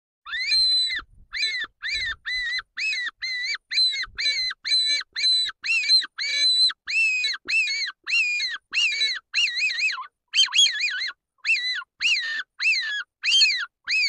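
Predator call sounding a rabbit-in-distress squeal, used to lure wolves: a long run of high squeals, about two a second, each rising and falling in pitch.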